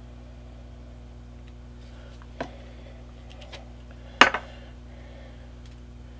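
Small bottles and a spray can set down on a hard work board: a light click, then one sharp knock about four seconds in with a smaller tap just after.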